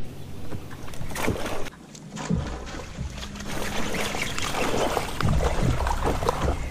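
A hooked bass thrashing and splashing at the surface in lily pads beside the boat as it is reeled in, in a run of repeated splashes that grows louder after about two seconds.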